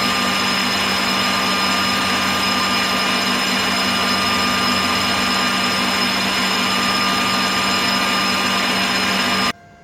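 Hasegawa HPL-90 small lathe running steadily with a steady whine and hiss from the spindle drive, then cutting off suddenly near the end.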